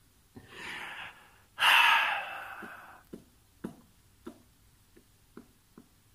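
A man takes a breath in, then lets out a long, loud sigh that fades away over about a second and a half. A few faint clicks follow.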